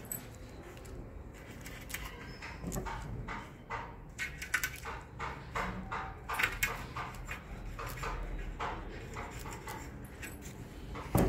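Velvet fabric rustling and scraping as it is pressed and tucked into an aluminium screen frame, with scattered small taps and clicks on the metal, and one sharp knock near the end.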